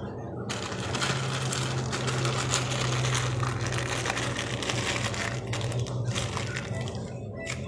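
A clear heat-resistant plastic bag crinkling and rustling as hands squeeze and knead a crumbly fish-bait mixture inside it, starting about half a second in.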